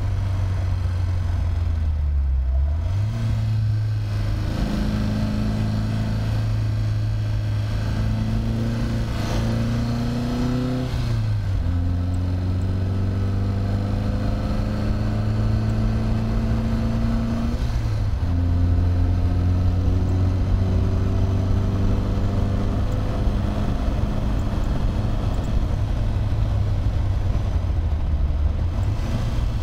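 Triumph TR3A's four-cylinder engine pulling hard on track. Its note climbs slowly through each gear and drops suddenly several times, at gear changes and lifts for corners.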